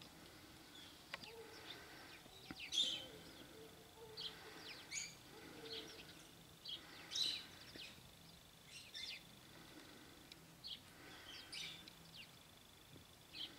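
Wild songbirds calling, short high chirps and quick trills every second or so, the loudest about three and seven seconds in, with a thin steady high tone running through parts of it.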